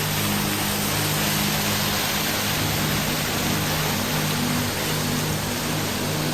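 Steady rush of falling water, like a waterfall's roar, over soft background music of sustained low notes.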